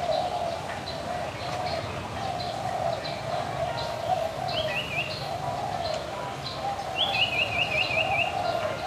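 Small birds calling in the trees: scattered high chirps throughout, and twice, about halfway through and again near the end, a quick run of five or so repeated dropping notes. Under them runs a steady wavering background of other bird calls.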